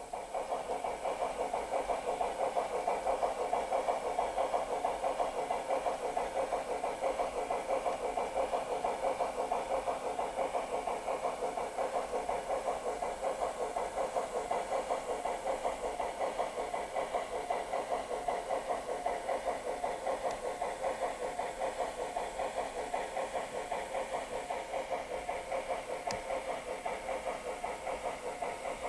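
Garden-scale model HSB steam locomotive's sound unit giving a fast, even steam-chuff rhythm as the engine runs along the track.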